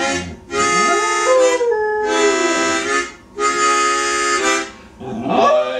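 A dog howling along to a harmonica playing three long held chords; the howl climbs, then slides down in pitch over a couple of seconds, and a new howl rises near the end.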